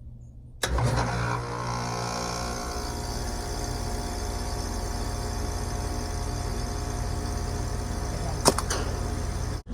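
Heat pump outdoor unit starting up: the compressor and fan kick on suddenly just under a second in, loudest for the first second, then settle into a steady hum and whir. A sharp click comes near the end.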